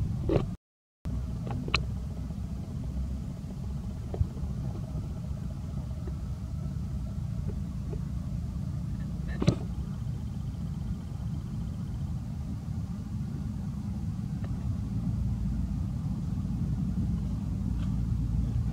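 A steady low rumble with a few short sharp clicks, the loudest about nine and a half seconds in; the sound cuts out completely for a moment just under a second in.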